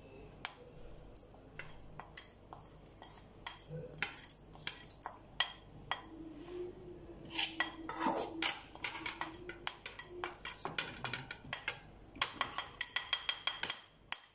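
A metal spoon clinks and scrapes against a glass plate and a steel bowl as spices are tapped off the plate into the flour. The clinks come scattered, then in a quick run of taps near the end.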